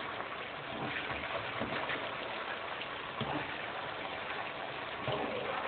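Thin-cut straw potatoes sizzling steadily as they deep-fry in plenty of hot oil in a frying pan.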